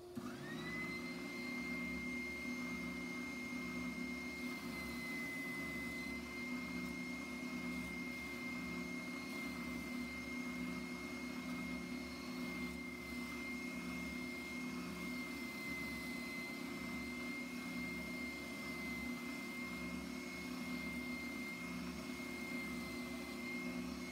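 Oscillating spindle sander switched on and running, its whine rising within a second to a steady high pitch, over a slow, regular pulsing as the drum strokes up and down. The drum sands the edge of a plywood gear blank that is turned against it by a hand-cranked drive wheel.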